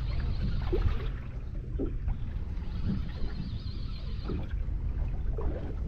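Steady low rumble of wind and water noise aboard a small open boat, with faint short sounds about once a second.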